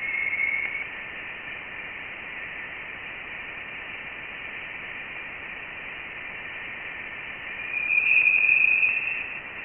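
Audio rendering of plasma waves detected by Voyager 1 in interstellar space: a steady hiss with a faint high hum, which swells louder near the end and then cuts off.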